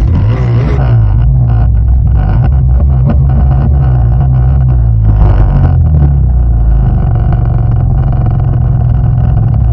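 Snowmobile engine idling steadily close by, a low even drone.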